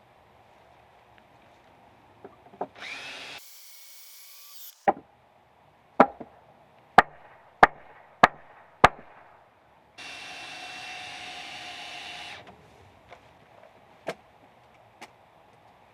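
Work on timber with hand tools: a stretch of steady rasping noise, then a run of six sharp strikes on wood about one every half second, then another steady stretch and two lighter knocks near the end.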